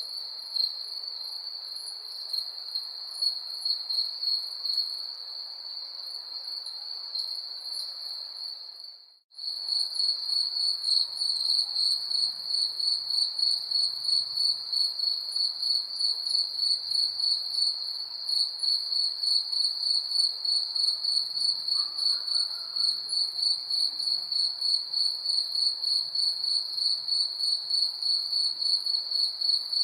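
Crickets chirping in a steady, high pulsing trill. About nine seconds in the sound cuts out for an instant and comes back louder, with a more even pulse.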